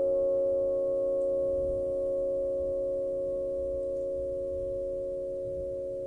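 Flat bells (bila), struck metal plates, ringing on with several steady tones held together and slowly dying away, with no new strike.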